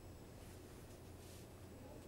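Near silence: a steady low room hum, with two faint soft rustles of a duvet shifting as someone moves under the covers.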